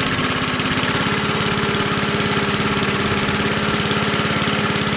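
Briggs & Stratton 3 HP horizontal-cylinder engine of a 1970s John Deere 20-inch push mower, fitted with a new muffler, running steadily with an even, rapid beat of firing pulses.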